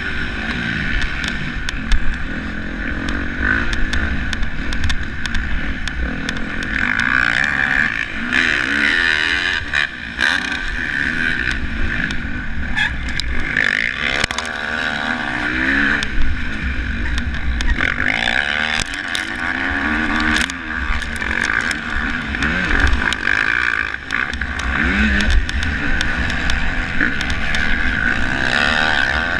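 Motocross bike engine heard from an onboard camera, revving up and falling back again and again as the rider accelerates, shifts and brakes around the dirt track, with wind buffeting the microphone.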